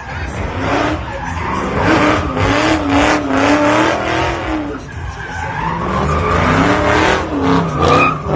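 A car drifting or doing donuts: tires squealing with a wavering pitch over the engine running hard.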